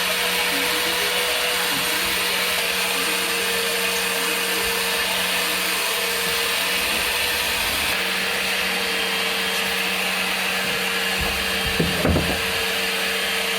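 Electric motor of a cleaning tool running steadily with a constant whine and hiss, with a couple of short knocks about twelve seconds in.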